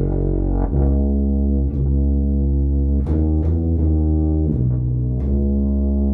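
An old Meinl Weston BBb tuba, a 3/4-size horn with three piston valves, played with a plastic mouthpiece, sounding a slow line of low sustained notes. The pitch changes about every second, with a few quicker notes around the middle. Reverb and compression were added to the recording.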